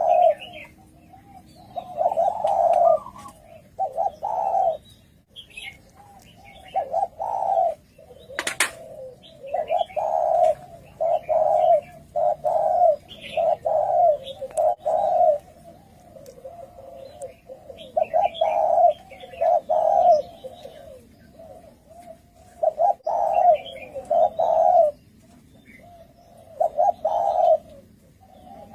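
Spotted doves cooing over and over, in phrases of several low coos separated by short pauses. There is a sharp click about eight and a half seconds in, and faint chirps from other small birds.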